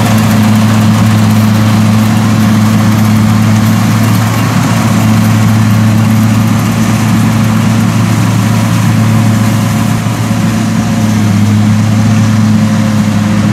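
Kubota rice combine harvester's diesel engine and threshing gear running steadily under load as it cuts rice: a constant low hum with a broad rushing noise over it.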